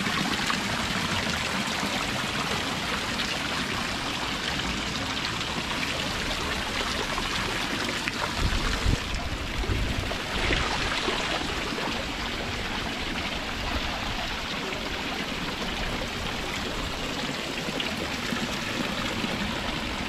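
Water jets of a carved stone fountain spouting and splashing steadily into its basin, with a few low bumps about eight to nine seconds in.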